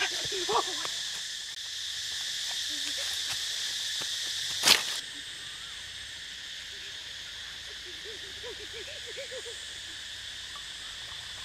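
Insects droning steadily in a high, even hiss. About halfway through there is one sharp click, after which the drone continues more quietly.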